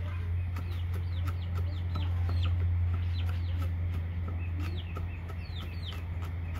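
Cleaver chopping garlic on a round wooden chopping block, in quick knocks about three a second. Many short, falling bird chirps and a steady low hum are heard with it.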